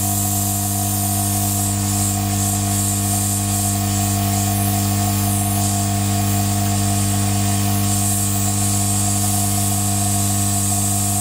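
Hot air gun running steadily at up to 500 degrees, heating a CPU heat spreader to melt the solder under the die: an even blower hum with a hiss of rushing air.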